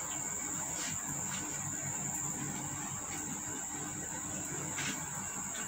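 Steady high-pitched chorus of insects, an unbroken shrill buzz, with a couple of soft clicks about a second in and near the end.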